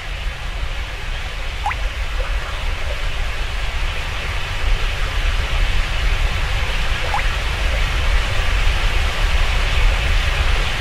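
Steady rushing noise over a low rumble, slowly growing louder, with two faint short rising chirps, one near the start and one past the middle.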